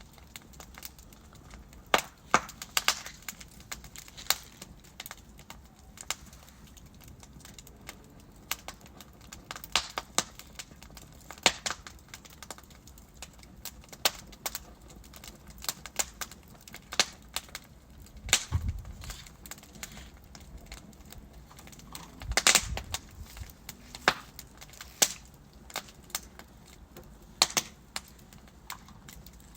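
Wood fire burning in a fireplace: logs crackling with irregular sharp pops and snaps over a faint steady hiss. A couple of heavier pops with a low thud come about two-thirds of the way through.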